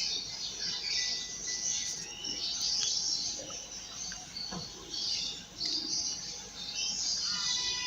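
Birds chirping, many short irregular high chirps.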